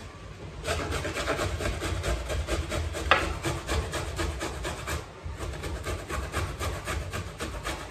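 Fresh ginger root grated on a metal box grater: rapid, even rasping strokes that start about a second in, with a brief pause about five seconds in.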